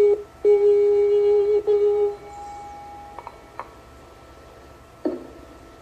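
A woman's voice holds a long sung "peace" on one steady note, taking a brief break near the start and stopping about two seconds in. Under it a Tibetan singing bowl rings with steady high overtones that carry on after the voice ends, and a few light clicks come near the end.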